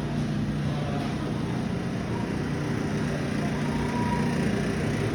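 Steady low hum of shop machinery running, even and unchanging.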